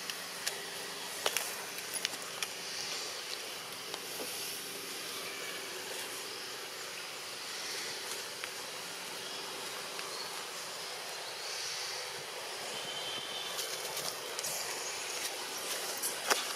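Steady outdoor background hiss, with a few sharp clicks scattered through it, the loudest just before the end.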